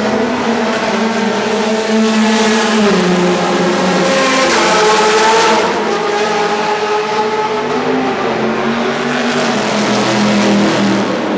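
Race car engines at high revs passing on a wet circuit, their notes rising and falling. A loud rush of noise swells in the middle as a car passes close.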